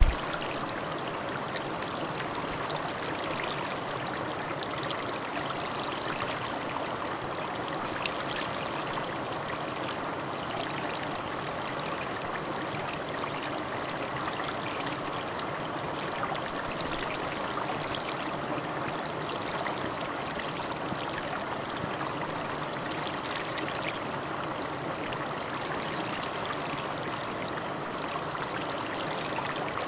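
A steady, even rushing noise with no breaks or separate sounds, like running water.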